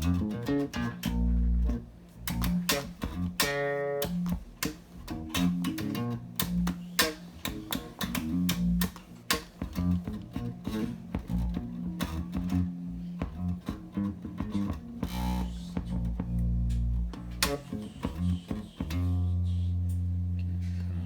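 Bass guitar played through a vintage tube compressor: a run of plucked low notes, ending on one long held note near the end.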